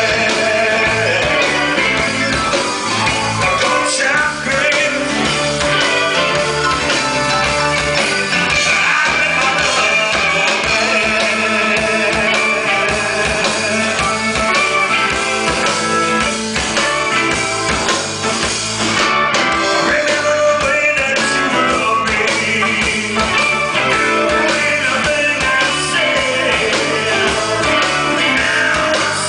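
A live rock band playing a song, with singing over the instruments throughout.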